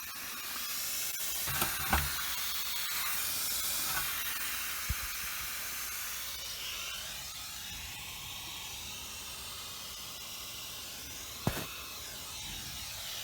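Freon hissing steadily out of a fresh leak in a Carrier heat pump's refrigerant circuit, with a few short knocks scattered through it.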